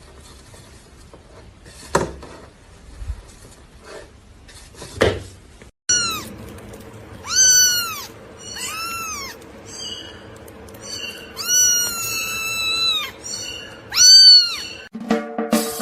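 A cat meowing about five times in the second half, each meow rising then falling in pitch, one drawn out longer than the rest. Before the meows, two short knocks.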